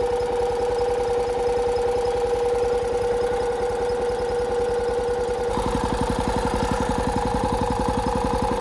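Restored Kobelco SS1 mini excavator's engine running steadily with a rapid even pulse and a steady whine over it; about five and a half seconds in the note changes, the pulse getting heavier and the whine a little higher.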